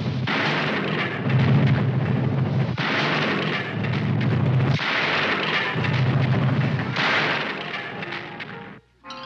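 Cartoon rocket-blast sound effect: a string of about five explosive blasts, each a second or two long, as the junk rocket's stages fire one after another. The blasts cut off near the end.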